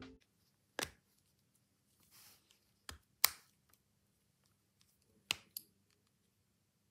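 Sharp plastic clicks and knocks as a clear case is snapped onto a Samsung Galaxy Z Flip4: about five separate clicks, the loudest just over three seconds in, with a short soft rustle around two seconds in.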